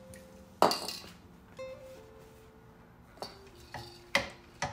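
Soft background music with sustained notes, over which come a few sharp knocks and clicks, the loudest about half a second in.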